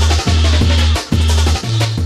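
Bass-heavy UK garage / bassline dance music played in a DJ mix: deep bass notes pulse about twice a second over a driving drum beat, the bass stepping up in pitch near the end.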